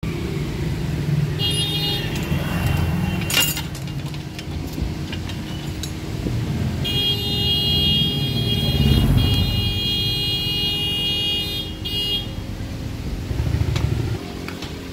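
Low rumble of motor vehicle traffic running on, with a sharp metal clank about three seconds in. A high-pitched steady tone sounds twice, briefly near the start and then for about five seconds in the middle.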